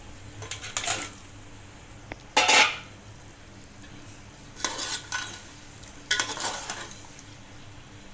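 Raw chicken pieces tipped into hot oil and fried masala in a steel pot, with a sudden loud burst of sizzling about two and a half seconds in. A metal spoon then scrapes and stirs against the pot in two short strokes.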